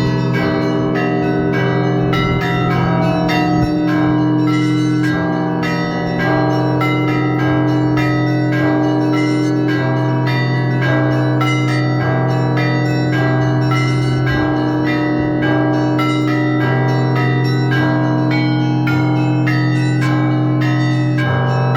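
Russian Orthodox bell ringing (zvon) on the belfry of the Spaso-Evfimiev Monastery: many bells struck in a rapid, steady rhythm over the long-sustained hum of the deep bells.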